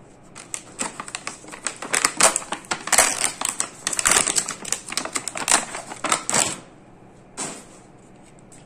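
Plastic blister packaging crackling and popping as a toy truck is pulled out of it: a dense, irregular run of sharp crackles and clicks for about six seconds, then one more crackle near the end.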